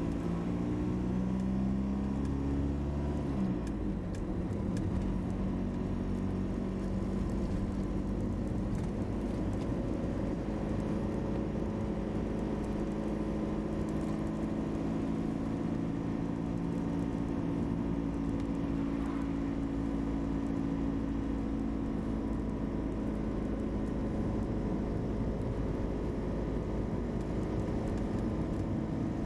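Moving car's engine and road noise: the engine pitch rises over the first few seconds as the car accelerates, then holds steady at cruising speed over a constant low rumble.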